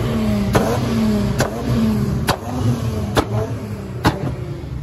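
Car engines running and revving, the pitch rising and falling. A sharp crack repeats at an even pace, a little under once a second.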